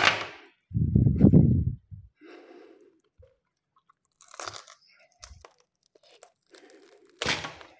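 A durian's spiky husk being pried apart by hand, the fibrous rind and pith splitting with crunching, tearing sounds in several separate bursts. A loud, low-pitched burst lasting about a second comes near the start, and shorter crackling ones come about halfway through and near the end.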